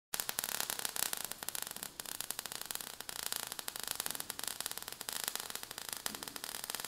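Crackling, fizzing sparks sound effect: a faint, dense run of irregular crackles over a steady hiss.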